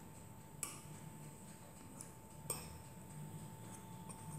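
Fork drawn through mashed potato in a ceramic baking dish, its metal tines clicking against the dish a few times, the sharpest click about two and a half seconds in.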